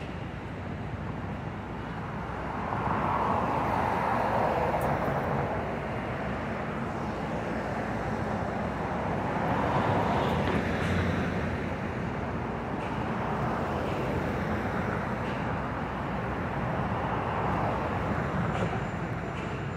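Street traffic: vehicles passing on a city street, the noise swelling and easing a few times as they go by.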